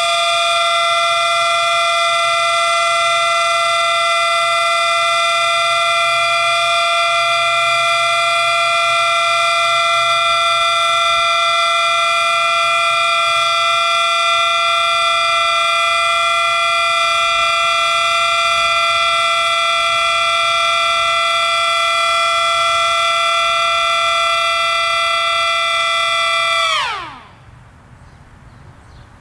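Siren sounding a steady chord of several tones held at full pitch, then winding down near the end with its pitch falling quickly until it dies away.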